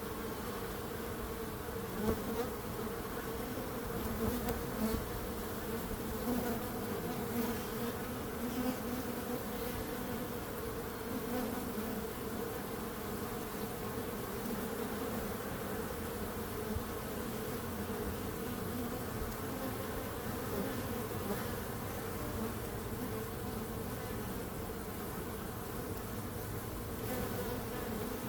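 Bees buzzing in a steady, continuous drone, with a few brief louder swells in the first third.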